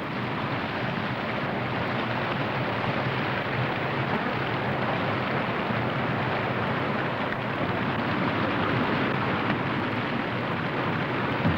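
Steady rushing of whitewater in a river rapid, an even noise with no change in level.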